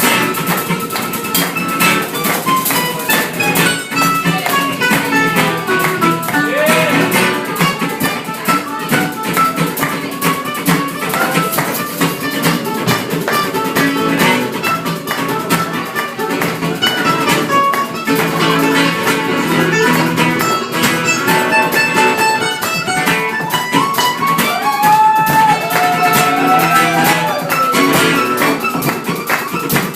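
A live band playing an instrumental break, led by plucked string instruments, with a bowed fiddle line that slides between held notes near the end.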